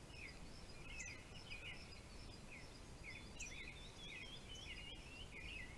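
Faint birdsong: many short, quick chirps repeating throughout, over a soft steady hiss.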